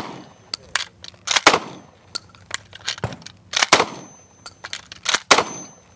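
Shotgun fired four times at intervals of about one and a half to two seconds, each blast ringing off, with lighter clicks and knocks between the shots. These are the single shots of the combat-loading part of a 10-shot drill, with the gun being reloaded between them.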